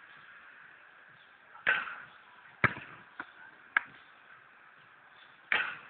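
Basketball hitting the court and the hoop: four sharp thuds and a fainter one, roughly a second apart.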